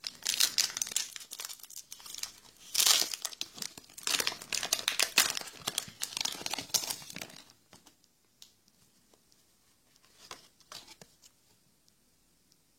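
A foil Pokémon booster pack wrapper being crinkled and torn open, in dense crackling bursts for about seven seconds. After that it goes quieter, with a few soft isolated ticks.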